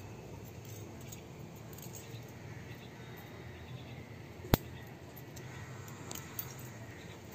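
Quiet, steady room noise with one sharp click about four and a half seconds in and a softer click near the end.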